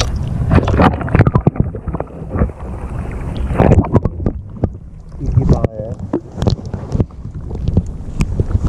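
Muffled water sloshing and rumbling heard through a camera submerged in the sea, with many sharp knocks and clicks scattered through it.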